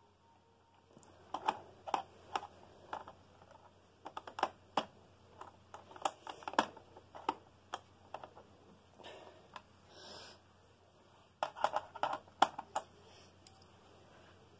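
Fingers clicking and picking at the plastic underside of a Toshiba Portégé R700 laptop while trying to pry a part loose: irregular sharp clicks and taps in clusters, with a short scrape about ten seconds in.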